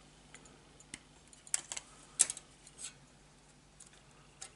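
Plastic model sprue cutters snipping parts off a sprue: a handful of sharp, separate clicks as the jaws close through the plastic gates.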